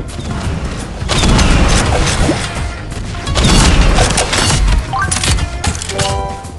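Fireworks going off in quick succession, a dense run of crackling bursts and booms. The loudest stretches come about a second in and again from about three and a half to five seconds.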